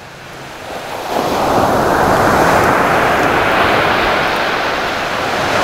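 Ocean surf breaking on a beach, the wash of the waves swelling about a second in and staying strong.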